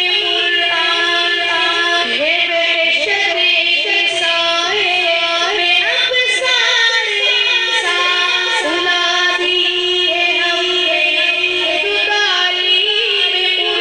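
An Urdu nasheed (nazm) sung by a single voice with drawn-out, gliding ornamented notes over a held drone, with no instruments.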